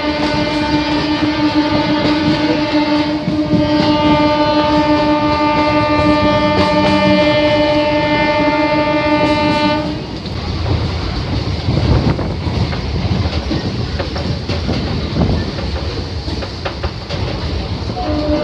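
A train horn sounds one long steady blast for about ten seconds over the running noise of a moving suburban electric train. It then stops, leaving the coach's rumble and clickety-clack over the rails at speed.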